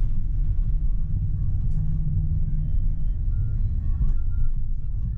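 Tram running along the track, a steady low rumble from inside the driver's cab, with a few faint clicks.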